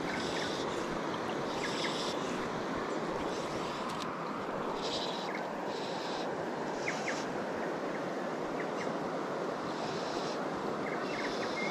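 Steady rush of a clear, fast-flowing river running over stones, with short higher hissing bursts coming and going every second or so and a few faint short chirps.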